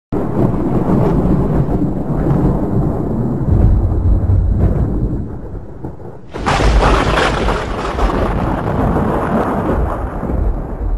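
Thunder-like rumbling sound effect for a logo intro, with a sudden louder crash about six seconds in that slowly dies away.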